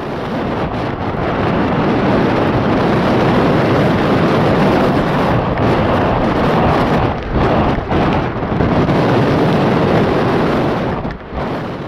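A Boeing 777-200ER's jet engines running as the airliner rolls along the runway after landing, mixed with storm wind buffeting the microphone. The noise dips briefly a few times in the second half.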